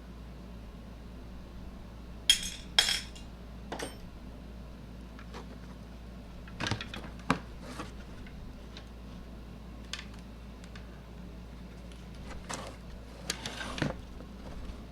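Irregular metallic clinks and clanks of tools and loose parts being handled while working an electric scooter's rear wheel off its mount, with two sharp clanks about two seconds in and a cluster of them near the end.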